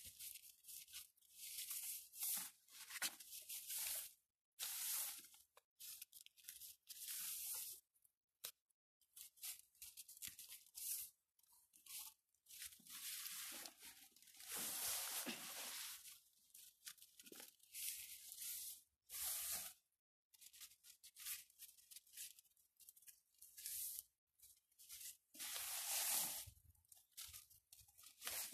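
Long, stiff Siberian iris leaves rustling and crackling as they are twisted and plaited by hand, in many irregular bursts of different lengths with short silent gaps between them.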